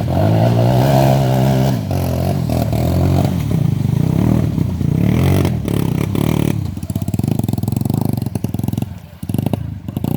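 Off-road vehicle engine running under load and revving, its pitch rising and falling again and again, dropping off briefly about nine seconds in.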